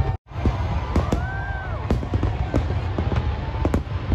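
Fireworks display: a constant low rumble of aerial shells bursting, cut through by many sharp cracks, with a few whistles that rise and fall in pitch. The sound drops out briefly just after the start.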